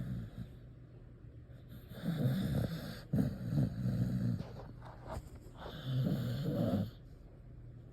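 Sleeping dog snoring: three long snores, each about a second long, with quieter breathing between.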